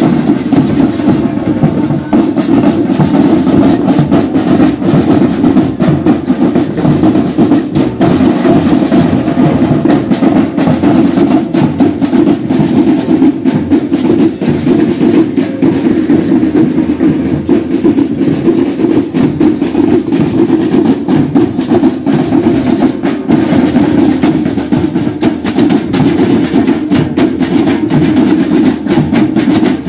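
Marching band percussion playing continuously and loudly: snare and bass drums with handheld metal percussion struck in a fast, steady rhythm.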